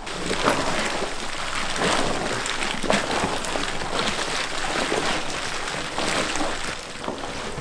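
Rubber-gloved hands mixing a large heap of kimchi filling of red pepper seasoning, shredded radish and green onion: a continuous wet squishing and rustling with small irregular crackles.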